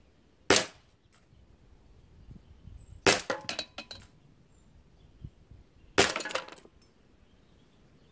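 Three shots from a Smith & Wesson 586 CO2 air revolver with a 4-inch barrel, about half a second, three seconds and six seconds in. The second and third shots are each followed by about half a second of clatter.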